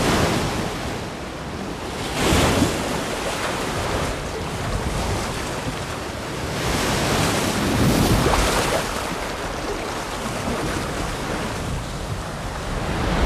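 Ocean surf washing in with wind, a steady rushing that swells as waves break about two seconds in and again around seven to eight seconds.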